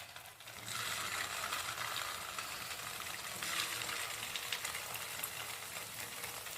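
Hot oil sizzling in a kadai as potato-semolina fingers go in to deep-fry. The sizzle starts suddenly under a second in and stays steady, with small crackles.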